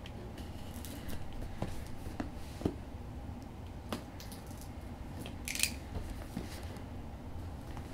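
Folding box cutter slicing open a cardboard box: scattered sharp clicks and taps from handling the knife and box, and a short hissing slice about two-thirds of the way through.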